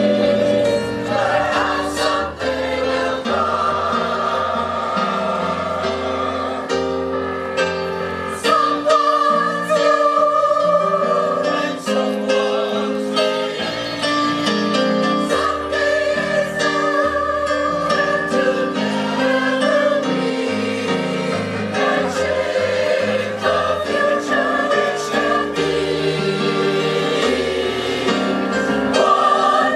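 Large mixed choir of men and women singing together, amplified, with keyboard accompaniment holding low notes beneath the voices.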